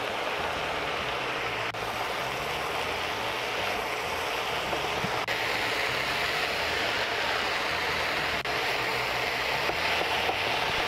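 Sliced mushrooms sizzling in a hot wok: a steady frying hiss, with a spatula stirring them near the end.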